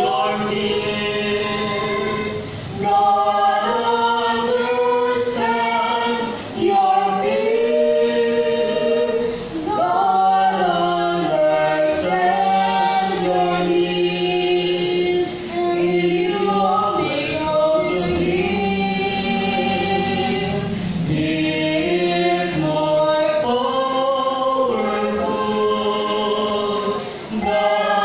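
Two women and a man singing a hymn together unaccompanied into microphones, in long held phrases with short pauses between them.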